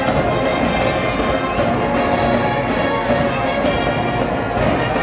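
High school cheering brass band, with sousaphones and trumpets, playing a baseball cheering song; the music is loud and continuous.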